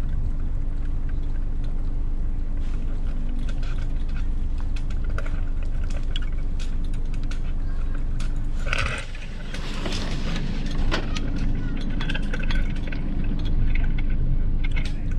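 Sailboat rigging hardware clicking and clinking as a Hobie Cat 16's sail is lowered and gathered at the mast, with sail cloth rustling in the second half, over a steady low hum.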